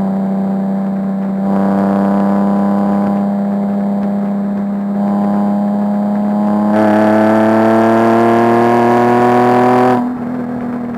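Nissan 370Z Nismo's 3.7-litre V6 heard from inside the cabin under varying throttle on track, over a steady low drone. The engine note steps up and down in loudness a few times, then pulls for about three seconds with its pitch rising, and drops abruptly near the end.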